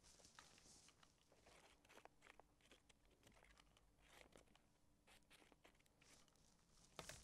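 Very faint crackling and rustling of dried leaves being handled and pressed on, with scattered light clicks and a slightly louder click near the end.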